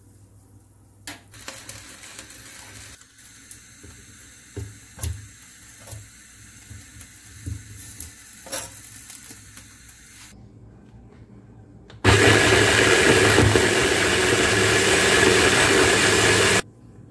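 A few knocks and clatters as ingredients go into a plastic mini-chopper bowl, then the electric mini chopper runs steadily for about four and a half seconds, chopping tomato, coriander, pickled chillies and garlic into a chutney, and stops abruptly.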